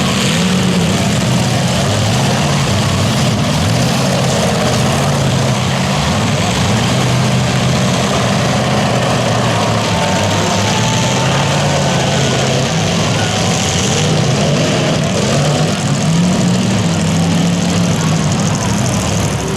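Several demolition derby cars' engines running and revving at once, a loud steady drone whose pitch rises and falls.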